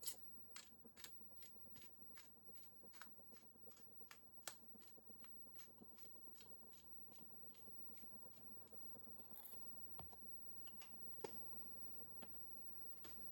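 Faint, irregular small clicks and taps, often two or three a second, over quiet room tone.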